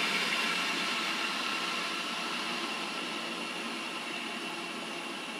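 Pratt & Whitney 3C Master Speed Ranger variable speed drive and its electric motor running with a steady whir, growing gradually quieter as the speed control handwheel is cranked down toward the low end of its range.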